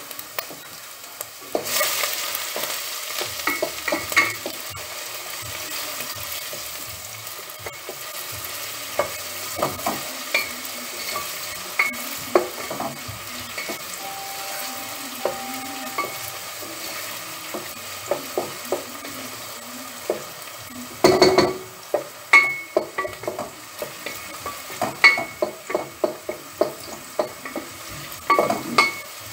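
Chopped onion and carrot sizzling in hot oil in a stainless steel pot, the soffritto frying, while a spoon stirs and knocks against the pot. The sizzle comes up about two seconds in, and the knocks are loudest about 21 seconds in and near the end.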